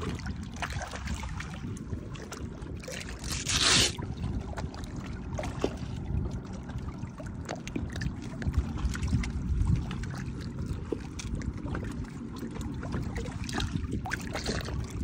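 Shallow bay water splashing and lapping around a boat hull and a wading angler, with small knocks and a brief louder burst about three and a half seconds in, as a fish is handled and worked into a mesh fish bag in the water.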